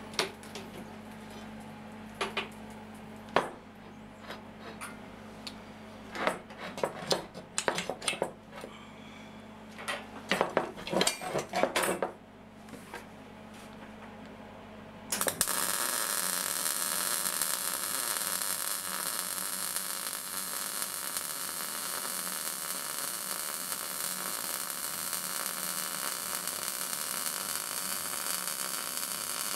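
Steel parts clinking and knocking as they are set in place on a steel workbench. About halfway through, an electric welding arc strikes and holds with a steady hissing.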